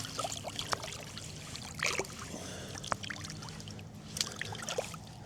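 Shallow river water trickling at the bank, with a few light, scattered splashes.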